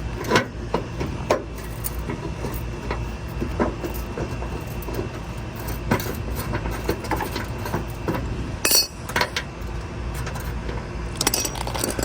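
Scattered metallic clinks and taps of hand tools and bolts as hardware is worked loose from a car's front end, with one sharper ringing clink late on, over a steady low rumble.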